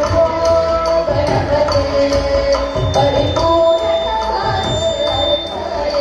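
Indian classical-style dance music: a held, sustained melody line over a steady beat of hand-drum strokes.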